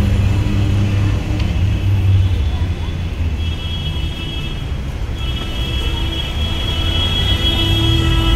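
Street traffic: vehicle engines running with a low, steady rumble, a long high-pitched tone sounding through much of the second half, and voices in the background.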